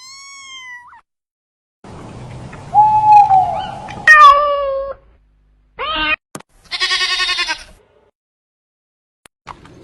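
A run of separate animal calls, one after another with short silences between: a brief call, a sliding call, a louder falling cry about four seconds in, a short yelp near six seconds, and a fast quavering call, like a bleat, about seven seconds in.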